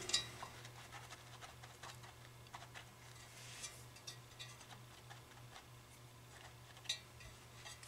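Faint handling sounds of fingers pressing a new foam surround onto a woofer cone: scattered light ticks and rubs, one sharper tick near the end, over a steady low hum.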